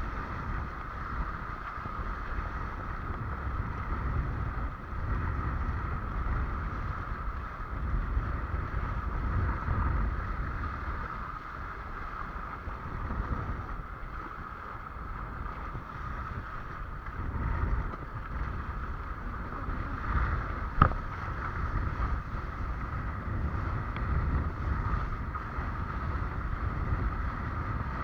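Wind buffeting the microphone and water rushing past a windsurf board under sail, with a steady high hum underneath. A single sharp knock comes about three-quarters of the way through.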